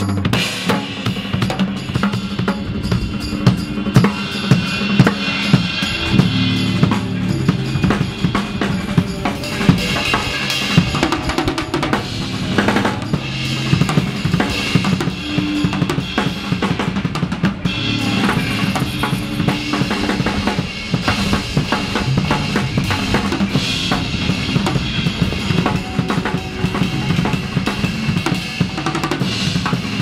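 Background music with a steady drum-kit beat.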